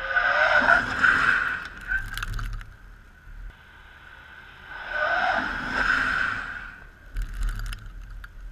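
Mercedes-Benz vans driving past on the test track, one after another. Each pass is a rush of tyre and engine noise that swells and fades: the first starts right away, the second about five seconds in. A few short crackles follow each pass.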